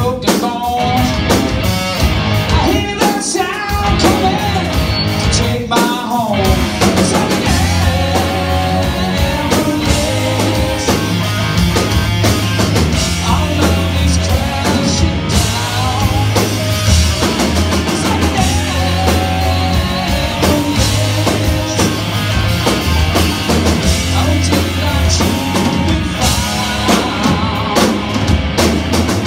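Live rock band playing loud: electric guitar, bass guitar and drum kit.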